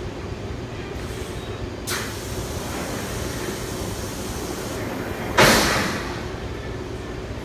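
Large vacuum-forming thermoformer in operation, with a steady mechanical drone. A short hiss comes about two seconds in, and a much louder hiss about five and a half seconds in, which fades over about half a second.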